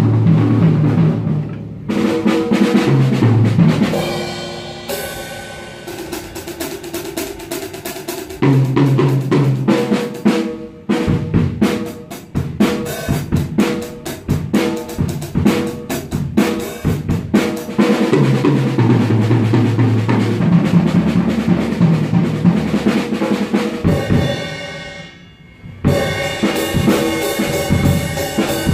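A drum kit being played hard: fast snare, bass-drum and tom strokes with crashing cymbals, in rolls and fills. The playing breaks off briefly a little before the end, then starts again.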